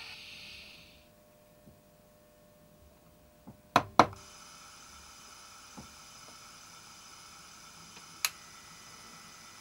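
Two sharp taps on a model railway layout, about four seconds in, set off a Train-Tech SFX10 steam sound unit, which starts its resting noise: a steady hiss with a few faint fixed tones. One more sharp click comes near the end.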